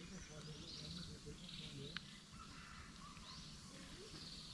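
Faint forest ambience: high chirping calls with short rising notes, repeating about every second, over a low faint background. A single sharp click about two seconds in.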